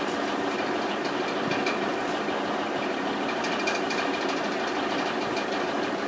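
Steady hum of an engine running, with faint short high chirps and ticks scattered through it, more of them in the second half.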